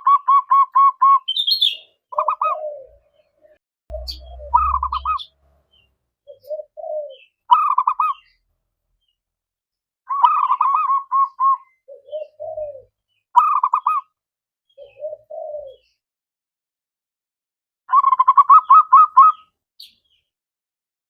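Zebra dove (perkutut) singing its cooing song in repeated phrases: quick stuttering runs of notes alternating with lower, rounder coos, about ten phrases with pauses between.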